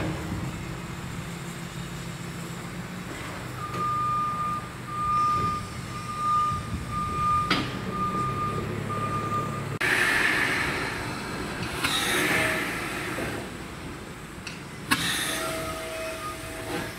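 A works vehicle's reversing alarm beeping about once a second for several seconds over the low, steady running of a diesel engine, followed by bursts of hissing and a sharp knock.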